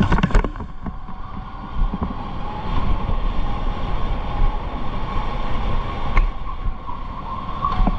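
Electric go-kart running on track: a steady electric-motor whine that drifts slightly in pitch, over heavy low rumble and wind noise. A few sharp knocks come at the very start and one more about six seconds in.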